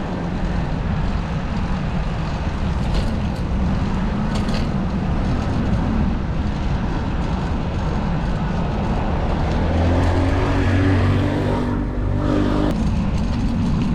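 City street traffic heard from a moving bicycle, a steady low rumble with wind hiss on the microphone. About ten seconds in a nearby vehicle's engine hum rises over it and cuts off abruptly shortly before the end.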